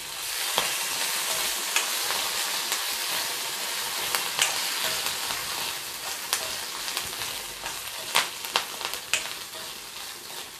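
Dried red chillies, urad dal, curry leaves and tamarind sizzling in hot sesame oil in a small iron kadai, stirred with a metal ladle that clicks and scrapes against the pan now and then. The sizzle swells just after the start and slowly eases off toward the end.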